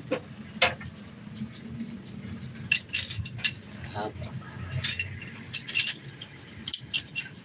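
Light metallic clinks and taps of hand tools against metal parts, in short clusters a few times over a steady low hum.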